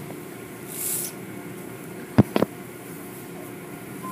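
Automatic tunnel car wash heard from inside the car: a steady machinery hum, a brief hiss of spray about a second in, and two sharp knocks about halfway through, the loudest sounds.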